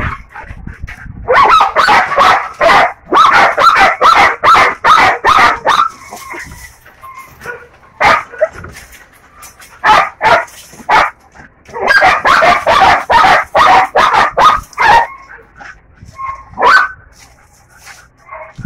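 Belgian Malinois barking hard in rapid volleys at a man on the other side of the yard fence: territorial guarding. There are three long runs of quick barks with short lulls between, and a few single barks near the end.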